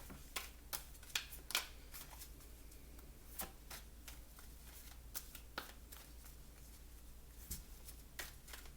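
Oracle cards being handled and shuffled: faint, irregular light clicks and flicks of card stock, more of them in the first two seconds and again near the end.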